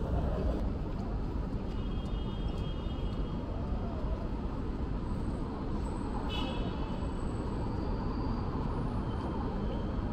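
City street traffic: a steady rumble of passing vehicles, with brief high-pitched squeals about two seconds in and again near the middle.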